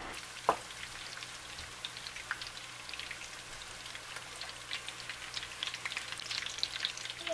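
Squash cakes deep-frying in hot grease: a steady sizzle full of small, dense crackles from the bubbling oil. A single knock about half a second in.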